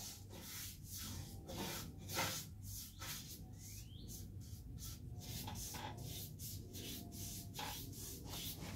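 Paintbrush swishing across a wooden piano cabinet panel as paste grain filler is brushed on, in quick repeated strokes about two a second.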